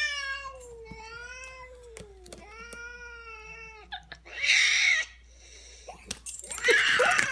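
Angry cat giving two long, wavering yowls, then hissing twice in short, noisy bursts.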